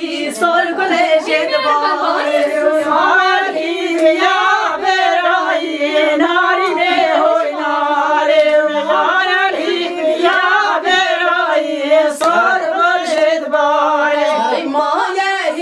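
Women singing a Kurdish folk song unaccompanied, one voice leading with others joining in, and a few hand claps.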